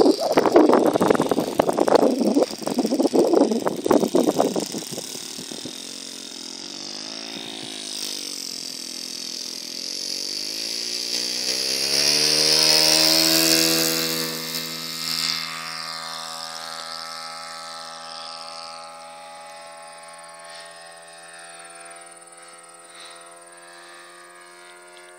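Saito FA-80 four-stroke glow engine of a radio-controlled Hawker Hurricane running up for takeoff: its note rises in pitch and grows louder to a peak about halfway through, then drops a little in pitch and fades steadily as the plane climbs away. A loud, noisy rumble fills the first few seconds. The owner finds this engine barely powerful enough for the plane.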